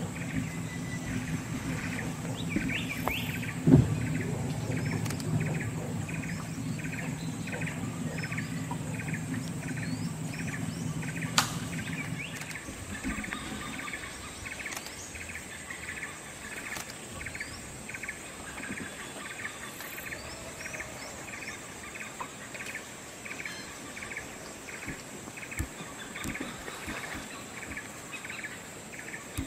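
Forest ambience: a short chirp repeating steadily about twice a second over a thin, steady high-pitched whine, with a low steady hum underneath that stops about twelve seconds in.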